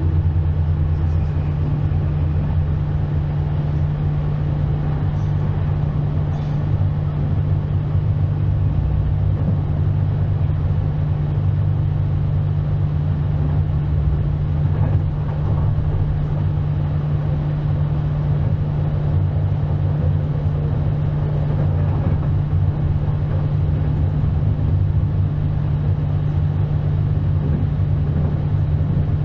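Regional train heard from inside the carriage: a steady low hum over a continuous uneven rumble.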